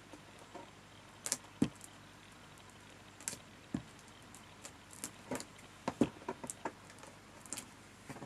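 Light, irregular taps and clicks of paper cut-outs and supplies being handled on a desk while pieces are glued together, about a dozen in all.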